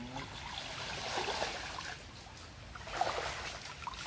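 Water splashing and sloshing as a person moves through a shallow, muddy creek, with louder swells of splashing about a second in and again about three seconds in.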